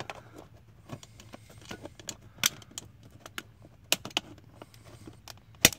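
Plastic trim tool prying at the knob of a 2011 Ford Explorer's power seat switch: scattered small plastic clicks and ticks, then a sharp snap near the end as the knob pops off its shaft.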